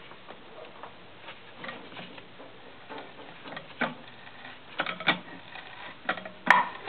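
Increment borer being turned by hand into an old wooden beam, squeaking and creaking in short irregular squeaks about twice a second, louder later on, with a sharp click near the end. The squeaking is common when coring.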